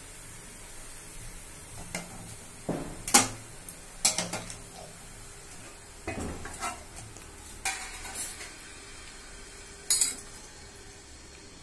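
Stainless steel cookware knocking and clinking, about seven separate sharp strikes a second or two apart, while steamed idlis are lifted off the steamer plate and dropped into a steel bowl.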